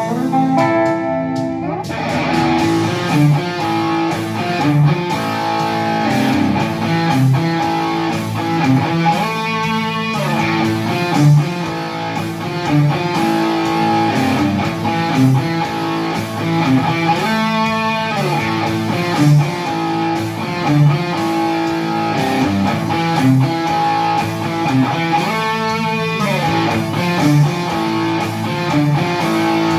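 1980s Epiphone Explorer electric guitar being played through an amplifier: continuous riffs and chords.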